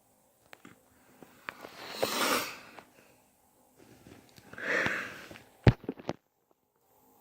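Two loud breaths or sniffs about two and a half seconds apart, followed by two sharp clicks.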